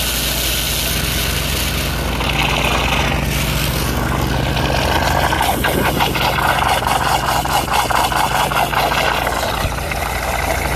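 Pressure washer engine running steadily under the rush of water as a sludge sucker attachment on the spray gun draws muddy water off the driveway edge, over 100 gallons per minute. From about halfway in, a fast pulsing of several beats a second joins the water noise.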